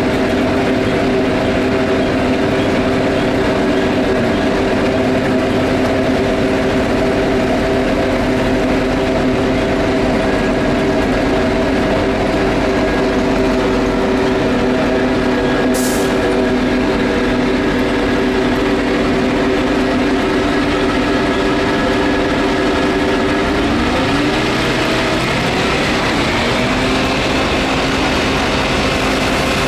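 DON-1500B combine harvester running at close range, a loud, steady mechanical drone with several held tones. Near the end the pitch sags and then comes back up. There is one short tick about halfway through.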